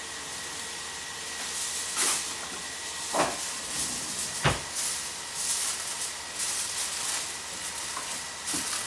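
Aluminium foil being pulled from its box, torn off and crinkled as it is pressed down over a plate: a rustling crackle with a few sharp snaps, one with a thump about four and a half seconds in.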